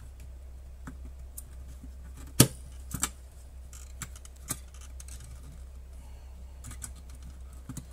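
Small clicks and taps of a disassembled Blackmagic Pocket 6K camera's metal internal frame and parts being handled and worked loose by hand, with one sharp click about two and a half seconds in and a few lighter ones after it. A steady low hum runs underneath.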